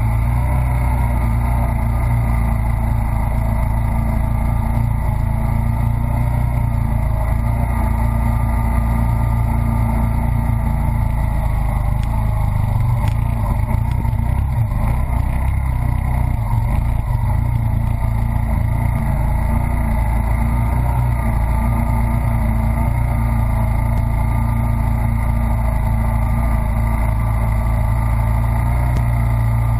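1983 Honda ATC200E Big Red three-wheeler's single-cylinder four-stroke engine running at a steady speed as it pushes through deep floodwater, with water churning and splashing around the wheels.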